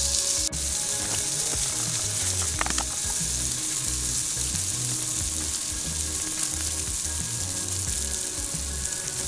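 Two plant-based Beyond Burger patties sizzling steadily in hot olive oil in a stainless steel frying pan, with a single sharp click about half a second in.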